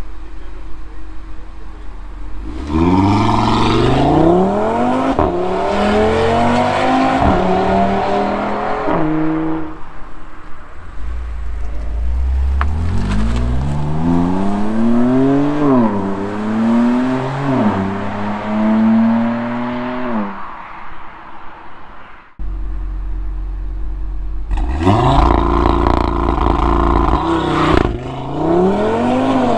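BMW M2 Competition's twin-turbo straight-six, its exhaust note climbing and dropping several times. Then, after a cut, an Audi RS3's turbocharged five-cylinder runs steadily before pulling away, its note rising, dipping at an upshift near the end and rising again.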